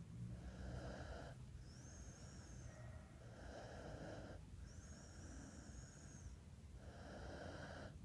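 Sleeper snoring in slow, regular breaths about every three seconds, each with a thin high whistle.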